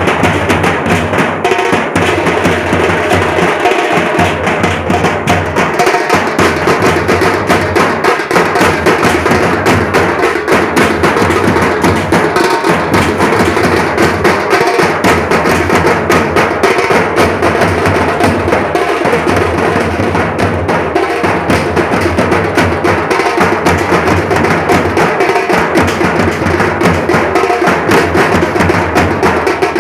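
Nasik dhol band drumming: large dhol drums and small tasha drums beating a loud, fast, continuous rhythm.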